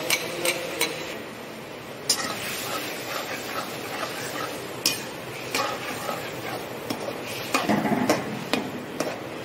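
Steel ladle stirring okra and curd gravy in a kadhai, scraping the pan with scattered knocks against its sides and a run of quick clattering strokes near the end.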